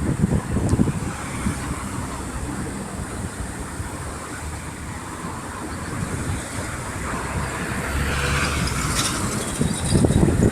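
Road vehicle noise, a steady rumble that swells louder over the last couple of seconds as a motor vehicle approaches.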